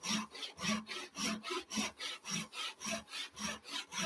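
Brass-backed Western-style tenon saw cutting wood by hand, rasping in even back-and-forth strokes, about two full strokes a second, with the push stroke doing the cutting. The saw is working diagonally down a tenon cheek towards the scribe line.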